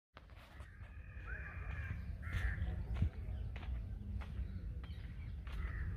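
Crows cawing a few times over a steady low rumble, with scattered clicks and one sharp knock about three seconds in.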